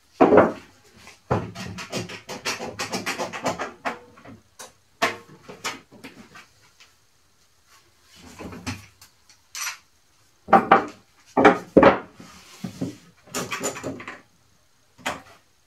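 Knocks, clatter and scraping of wood and tools being handled on a plywood cabinet. The sounds come in irregular clusters, with a sharp knock just after the start, a run of rattling soon after, and another group of loud knocks later on.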